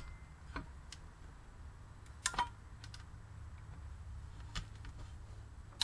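Hand tools and bolts clicking and clinking against the engine's cylinder head as its bolts are undone. There are a handful of separate sharp metal clicks, the loudest a quick pair about two and a half seconds in, over a faint low hum.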